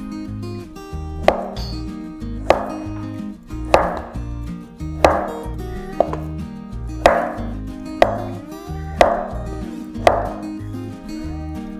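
Kitchen knife cutting down through avocado onto a wooden cutting board, about one sharp knock a second, roughly eight cuts. Soft background music plays underneath.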